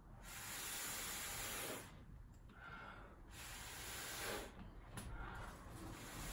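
Breath blown hard through a plastic straw onto wet acrylic paint, three long hissing blows with short pauses for breath between them, spreading the paint in the straw-blow technique.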